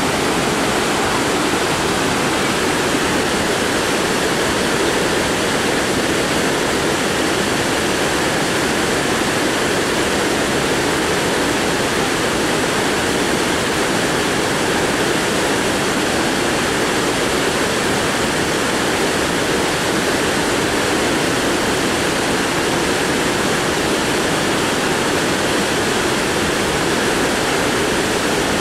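Mountain torrent rushing over boulders: a steady, loud wash of white water that does not change.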